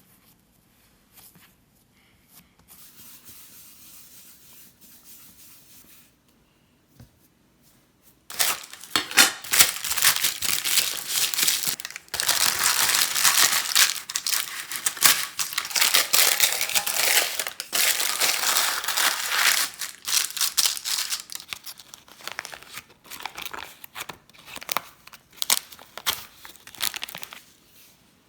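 Crinkling and rustling of a stiff sheet being handled, such as crumpled paper or wrapping. It comes as a dense crackle that starts loudly about eight seconds in and runs in long spells broken by short pauses, with a fainter steady hiss before it.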